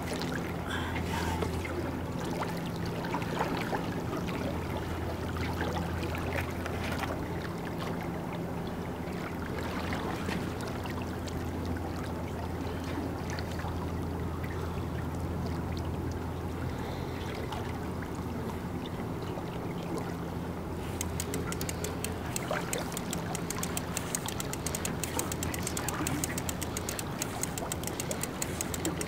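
A boat motor hums steadily at idle, with water lapping and trickling around the hull. A fast, high ticking joins in about two-thirds of the way through.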